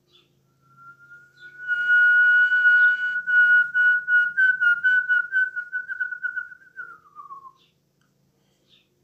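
A person whistling one long held note. It is steady at first, wavers in pitch from about halfway, and slides down before stopping near the end.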